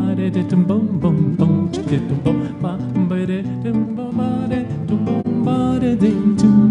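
Nylon-string electro-acoustic guitar played in a flowing chordal accompaniment, with a man's voice singing along without clear words.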